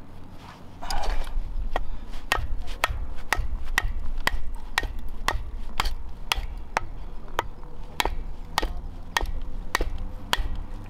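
Batoning kindling: a wooden baton striking the spine of a knife set into a stick of firewood, sharp knocks about two a second as the blade is driven down through the wood.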